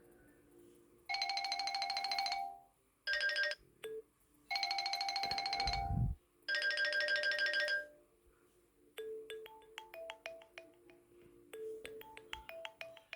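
TCL 505 phone ringtones: first a fast-pulsing electronic ring tone in four short bursts, with a low thump near the end of the last burst, then, about nine seconds in, a gentle melodic tune of short separate notes.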